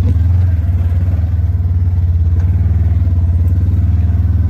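Polaris RZR 1000 side-by-side's twin-cylinder engine running with a steady low drone and a fast throb as the machine drives a rocky dirt trail.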